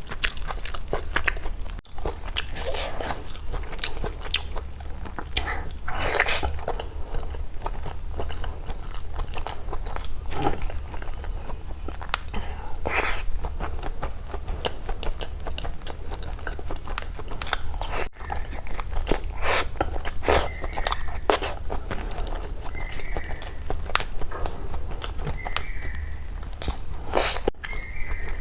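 A person eating close to the microphone: chewing and biting mouthfuls of chicken biryani and egg curry, with many short crunches and clicks. A constant low hum runs underneath.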